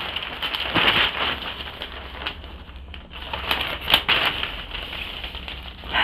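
Newspaper pages rustling and crinkling as they are handled and turned, in irregular rustles with sharper crackles about a second in and again around four seconds in.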